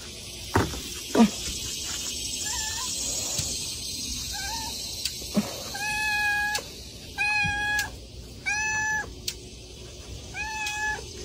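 A domestic cat meowing over and over for its food, a few faint meows and then four clear, even ones about a second apart in the second half. Two sharp knocks about a second in are the loudest sounds.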